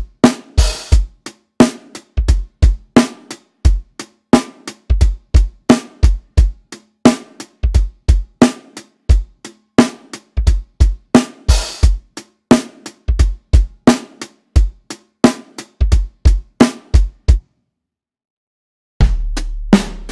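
Sampled acoustic drum kit from Addictive Drums 2's Modern Soul and R&B kit playing a soul/R&B groove of kick, snare and hi-hat. The groove stops about 17 seconds in. After a short gap, a new groove starts with a deep kick that rings on long.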